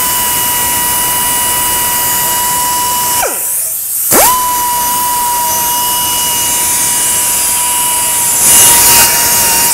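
Pneumatic die grinder running with a steady high whine and hiss as it puts a radius on the square inside edge of a stamped control arm's bushing bore. It winds down about three seconds in, then starts up again a second later and runs on.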